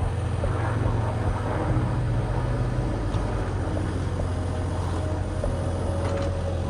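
Engine of an earth-moving machine running steadily under load while it works soil, with a few faint clanks.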